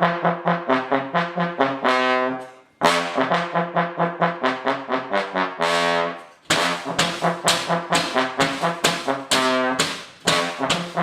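Brass instruments playing quick, short repeated notes in three phrases, each ending on a longer held note, with brief breaks between them.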